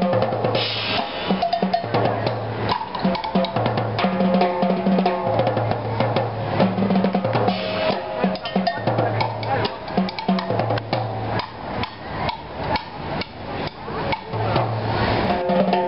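Drum-led background music: a busy drum kit beat over a repeating bass line, with a higher melody line on top.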